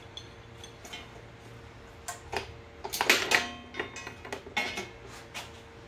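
Small metal parts and tools clattering and clinking, with a sharp ringing metal clink about three seconds in followed by scattered lighter clicks, as loose parts fall and scatter.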